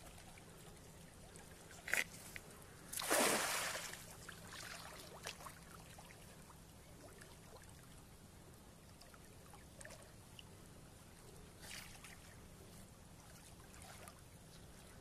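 A cast net thrown into a river: a sharp click about two seconds in, then the net splashes down on the water about a second later and the splash fades away.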